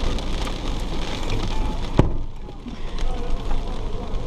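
Rain hitting a car from outside, heard inside the cabin over the low rumble of the vehicle, with one sharp knock about two seconds in.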